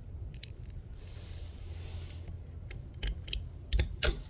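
Small clicks and knocks from handling a Marlin 795 .22 rifle, scattered through, with two sharper clacks near the end, over wind rumbling on the microphone.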